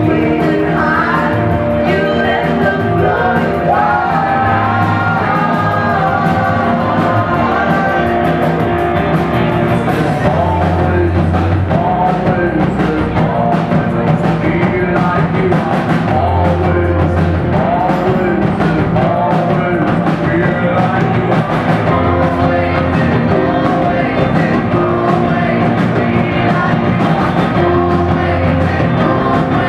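Rock band playing live: electric guitars and drum kit, with a sung lead vocal over sustained low notes.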